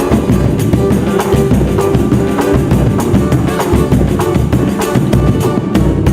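Samba-pagode band playing an instrumental break with no singing: percussion and bass keeping a steady beat.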